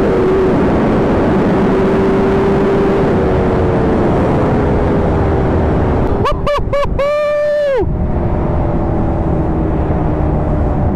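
A motorcycle engine runs steadily under a rush of wind noise. About six seconds in come three quick horn beeps and then a longer held horn note, and another quick run of beeps comes at the very end.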